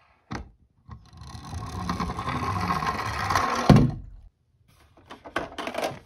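Plastic toy ambulances being handled in a cardboard box: two light clicks, then about three seconds of scraping rumble that ends in a loud thunk, and a run of short clicks near the end.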